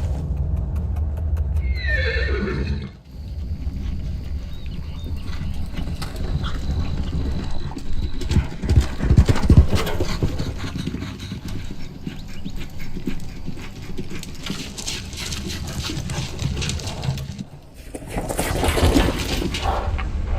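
Barrel-racing horse hoofbeats thudding over arena ground, with a horse's whinny falling in pitch about two seconds in. The heaviest hoof thuds come around the middle.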